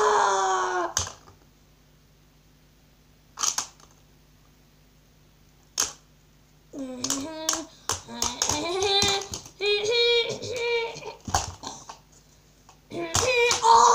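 A boy's wordless vocal sound effects, in bursts near the start, from about halfway in and again near the end, with a few separate sharp clicks and knocks of plastic action figures being handled between them.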